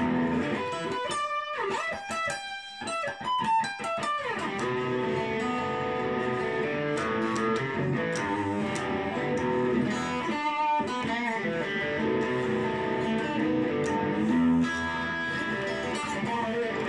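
Telecaster-style electric guitar played in a boogie style, with continuous riffs and a quick descending run about three seconds in.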